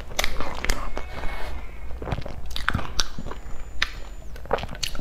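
Close-miked eating: a woman chewing a mouthful of pork-floss and seaweed sponge cake, with many short, sharp mouth clicks and crunches.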